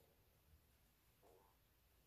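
Near silence: room tone, with one faint, brief sound about a second and a quarter in.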